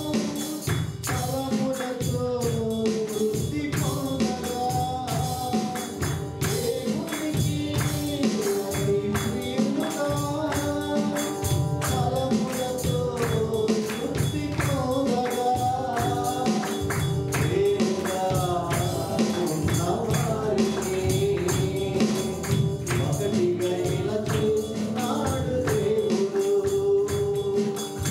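Gospel worship song: voices singing a melody over a steady, rhythmic percussion beat.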